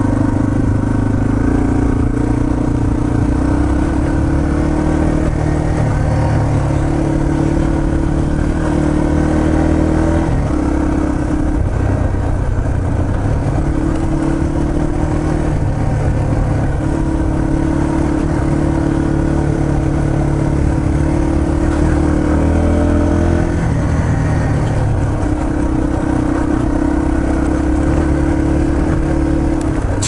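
Yamaha TT-R230 dirt bike's single-cylinder four-stroke engine running steadily while riding a dirt trail, its pitch dropping and picking up again every few seconds as the throttle eases off and opens.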